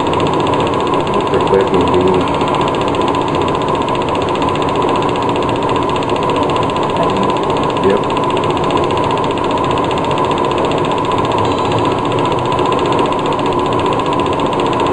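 Film projector running, a steady mechanical whir and rapid clatter with a constant hum-like tone.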